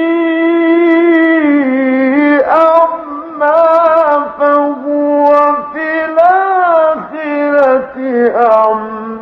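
Quran recitation by a male reciter: the voice holds one long note for about two seconds, then runs into melodic, ornamented phrases that glide up and down, with short breaths between them.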